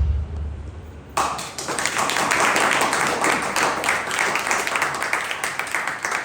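Audience applauding: dense clapping that starts about a second in and thins out near the end.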